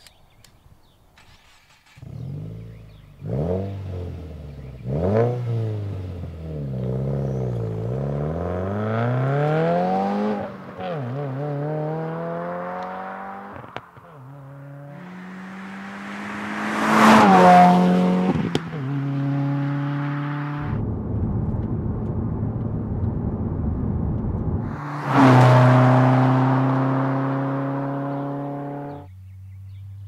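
2015 Subaru WRX's turbocharged 2.0-litre flat-four running through a COBB stainless steel 3-inch turbo-back exhaust. After a couple of seconds of near quiet it revs in sharp blips, then pulls with pitch rising in steps. It passes loudly about halfway through, pitch dropping as it goes by, and another loud pass comes near the end, fading away.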